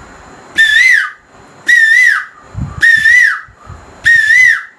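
Man imitating an Asian koel's call by mouth-whistling. Four loud whistled calls about a second apart, each a wavering note that rises, dips and falls away.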